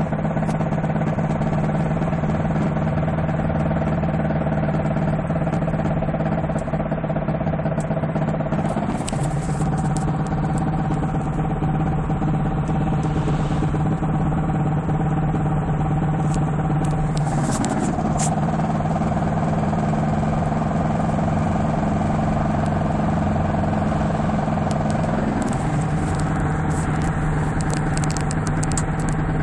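Toyota Celica ST202 running with a steady hum and a strange knocking from a rear wheel, which the owner asks might be a worn wheel bearing. The pitch of the hum shifts slightly about 9, 17 and 25 seconds in.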